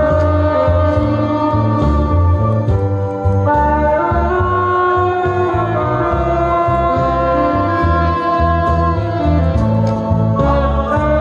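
Amplified live band music with a woman singing over the accompaniment and a pulsing bass beat.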